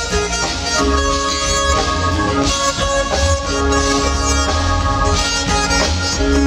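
Live smooth-jazz band playing, with long held lead notes over keyboards and a steady bass line.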